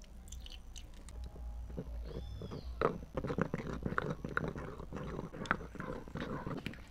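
Marble pestle grinding and stirring wet blue glitter in a marble mortar: a run of gritty crunching and clicking strokes that thickens about three seconds in.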